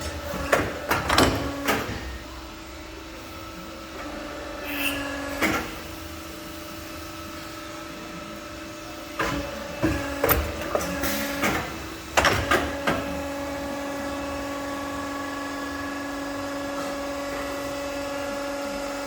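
SOCO SB63 Auto CNC pipe bender running: a steady machine hum, with clusters of sharp clanks and knocks near the start, about five seconds in, and again from about nine to thirteen seconds in.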